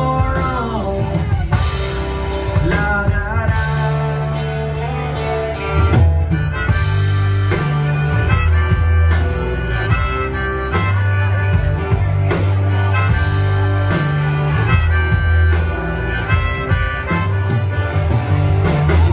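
Live band playing an instrumental stretch without vocals: a bending lead melody over electric guitars, a bass line that changes note every second or so, and drums.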